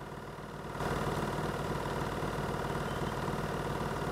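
A steady droning hum made of many held tones, stepping up in level a little under a second in and then holding.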